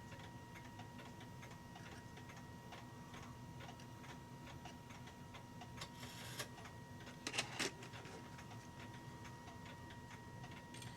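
A clock ticking steadily, about two ticks a second. About six and seven and a half seconds in come brief clicks and rattles of small metal clock-movement parts being handled.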